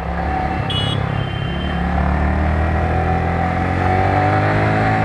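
Yamaha R15 V3's 155 cc single-cylinder engine running under way, its pitch rising slowly as the motorcycle gathers speed. A brief high-pitched tone sounds about a second in.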